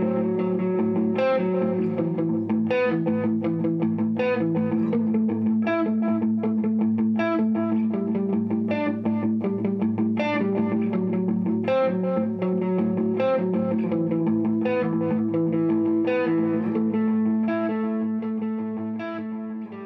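Background music led by guitar, plucked notes over sustained low tones, fading out near the end.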